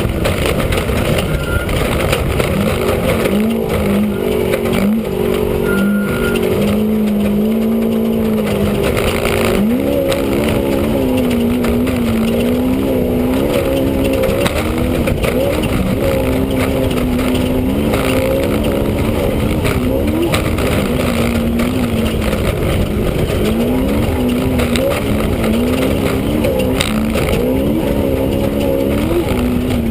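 Off-road race vehicle's engine heard from inside the cockpit, its pitch climbing and dropping again and again with the throttle over a loud, constant rattle and rumble from the rough ground.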